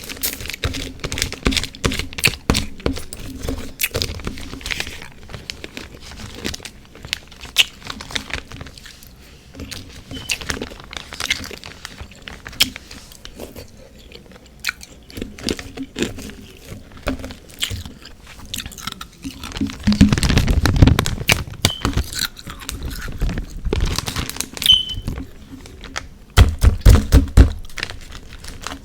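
Close crunching and chewing of refrozen freezer frost ice mixed with powdered sugar and whipped cream: a steady run of sharp crunches, with louder bouts of biting about twenty seconds in and again near the end.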